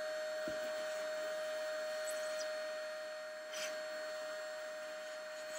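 Vacuum cleaner running with a steady whine, its hose nozzle sucking up spackle sanding dust. A short rattle about three and a half seconds in.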